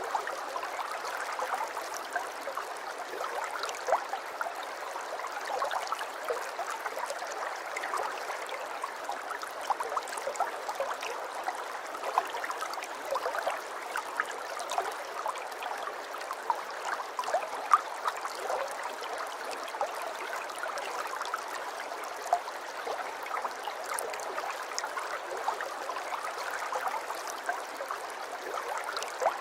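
Aquarium water trickling and bubbling steadily, with many small pops and splashes scattered through it.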